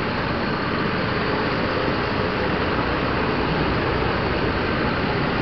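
Steady rumble and rushing road noise inside a moving car's cabin.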